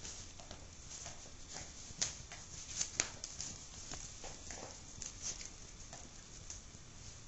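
A poodle puppy's paws and claws scrabbling and tapping on the floor and rug as it plays, a run of irregular light clicks with sharper knocks about two and three seconds in.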